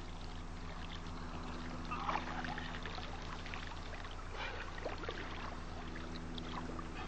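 Water trickling and moving in small irregular bits over a steady low electrical hum.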